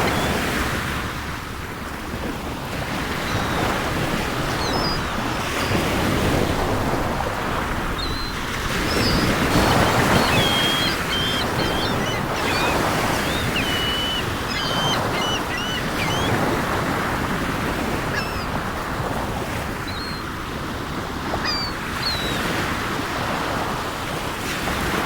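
Sea waves surging and washing in, swelling and easing every few seconds, with seagulls calling in short high cries over them, most of the calls in the middle stretch.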